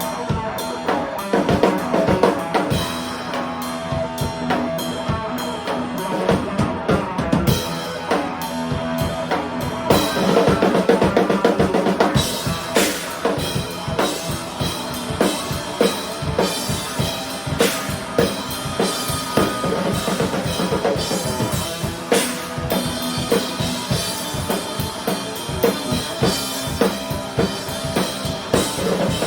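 Live band jamming: a drum kit played hard with bass drum and snare strokes, under held notes from an amplified instrument.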